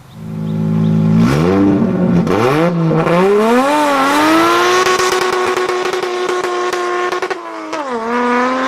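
Car engine revving hard under acceleration: the pitch climbs, drops back and climbs again, holds high and steady for a few seconds, then dips near the end and rises once more, as in shifting up through the gears.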